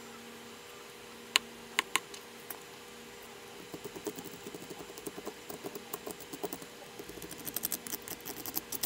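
Kitchen knife cutting through a mangrove snapper's bones behind the head. A few sharp ticks, then a quickening run of small crackling clicks from the knife working through the bone.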